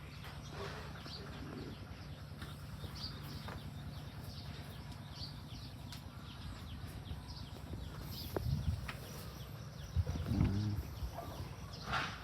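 Farm ambience: scattered small bird chirps over a low steady hum, with a short low animal call about ten seconds in.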